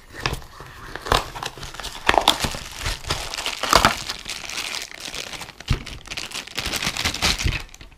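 Clear plastic packaging bag crinkling and crackling as it is handled and opened to unwrap a small battery charger, with cardboard packaging rustling too. Irregular crackles and snaps, loudest about two and four seconds in.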